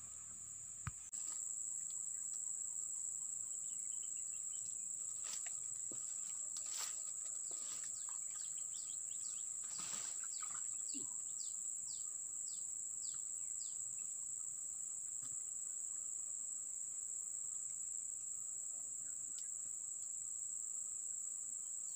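A steady high-pitched drone of insects runs throughout. From about eight to fourteen seconds in, a bird gives a run of short falling whistles, about two a second. Around ten seconds in there is a brief swish as a fishing rod is cast.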